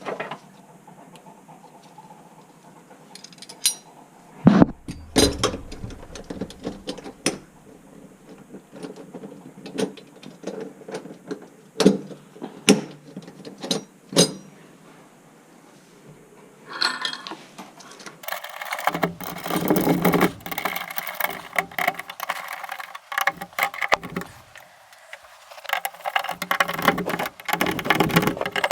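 Scattered knocks and clinks of hand tools and metal parts being handled, turning into busier rattling and clattering about two thirds of the way through.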